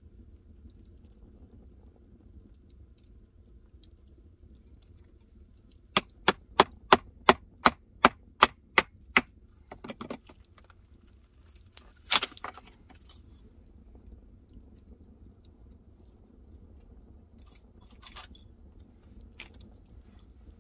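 Knife work on a thin plank of split firewood: a quick, even run of about a dozen sharp clicks, roughly three a second, then a few single scraping cuts on the wood.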